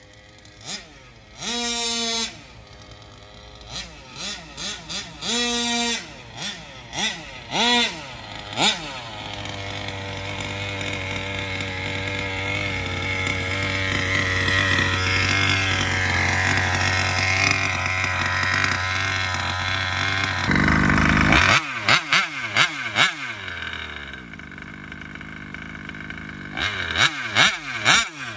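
Taylor 35cc two-stroke engine with an Olimat tuned pipe, in a KM Baja 5T RC buggy. It blips in short rising-and-falling revs, then is held at high revs for about ten seconds, growing louder as the buggy comes closer. After a short rush of noise it gives more sharp throttle blips near the end.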